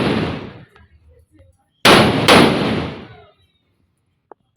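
Firecrackers exploding: two sharp, very loud bangs about half a second apart, each trailing off over about a second. The tail of an earlier bang fades at the start, and another bang begins at the very end.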